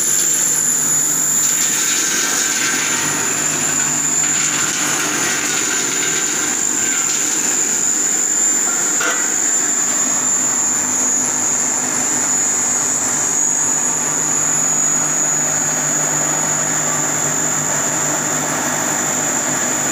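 Stainless-steel cashew grinding machine with a hopper running steadily while cashew nuts are fed through it, giving a constant high whine over a steady low hum.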